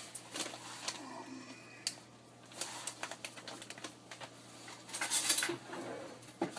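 Kitchen handling sounds: scattered clicks and knocks of bottles, lids and a utensil against a mixing bowl, with a louder rustling burst about five seconds in.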